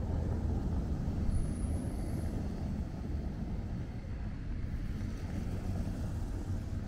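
Street ambience: a steady low rumble of car traffic on wet city roads.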